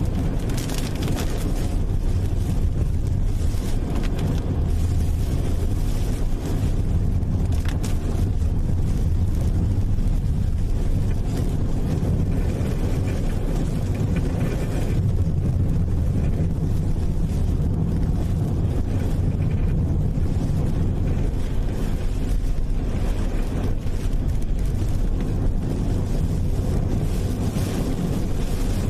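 Steady low rumbling noise with no clear pitch and no distinct events.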